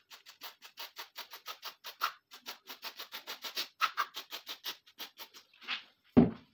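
Aerosol can of M40 lubricant spray fired through its straw nozzle onto rusted metal in quick short hisses, about four a second, for some five seconds. Near the end comes a single loud thump.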